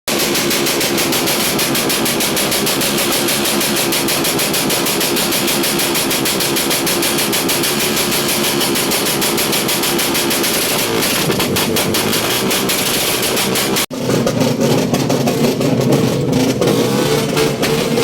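Loud motorcycle engine and exhaust running with a fast, even pulsing beat. An abrupt cut about 14 seconds in leads to a louder motorcycle engine running unevenly.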